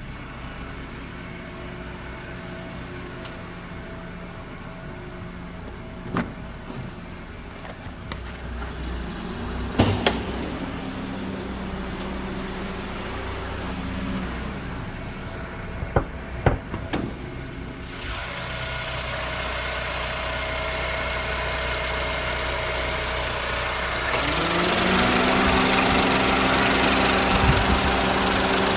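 Honda Civic engine idling with the air conditioning switched on, the abnormal noise the owner hears with the AC running. A few sharp clicks come through the first two-thirds, the idle steps up, and a rushing air noise grows louder about two-thirds in and again near the end.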